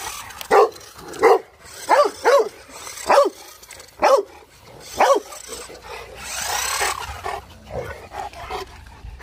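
Dogue de Bordeaux barking at a toy remote-control car, about seven short barks in quick succession over the first five seconds, then a brief rushing noise about six seconds in.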